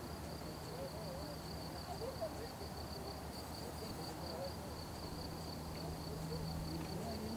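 A cricket chirping steadily in a fast, even, high-pitched pulse, with a faint low hum beneath.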